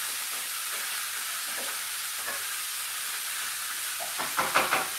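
Seasoned rabbit pieces sizzling as they brown in hot camelina oil in a frying pan, a steady hiss. A brief clatter comes about four seconds in.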